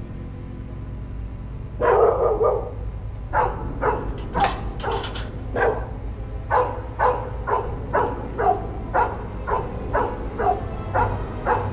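A dog barking over and over, about two barks a second, starting about two seconds in, over a low steady drone.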